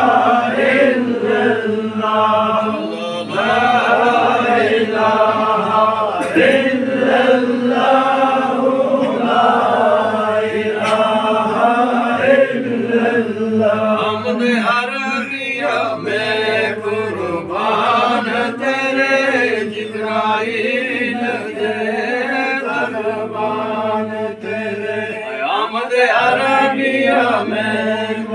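A group of men chanting Sufi zikr together in unison: many voices sing the same devotional phrase over and over, without a break.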